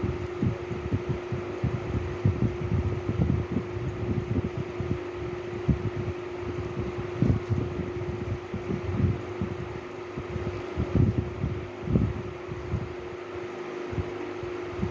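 A steady mechanical hum, like a running fan, with irregular low rumbling thumps throughout.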